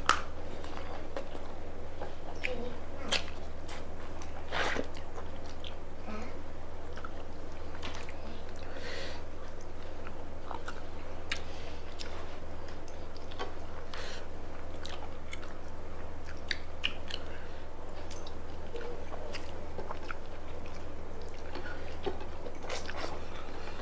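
People chewing and biting food at close range, with scattered faint wet smacks and small clicks, over a steady low hum.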